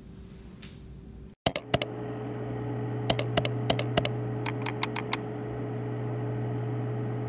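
Faint room tone, then a steady low hum begins about a second and a half in, with quick keyboard-typing clicks over it in three short runs.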